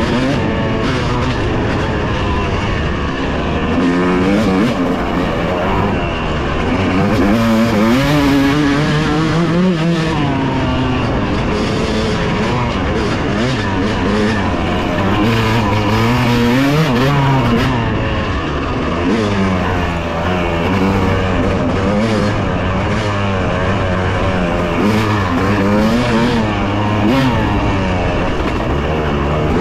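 Dirt bike engine being ridden hard, its revs climbing and dropping again every second or two.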